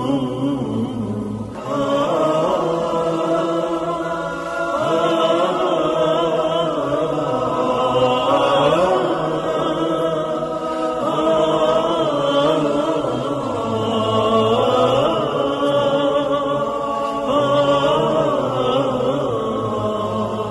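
A male voice chanting in long, bending melodic lines with no instruments, in the style of Islamic religious chant.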